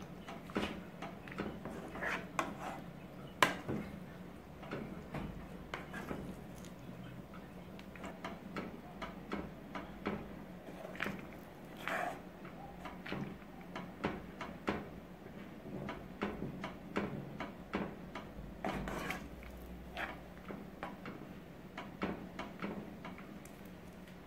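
Metal spoon stirring thick cornmeal porridge in a metal pot, scraping and knocking against the pot in quick, irregular strokes, with one sharper knock about three and a half seconds in.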